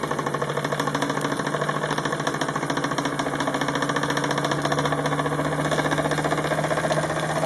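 Wilesco D16 model steam engine running fast, a rapid, even chuffing of exhaust beats as it picks up speed, with a steady low hum underneath.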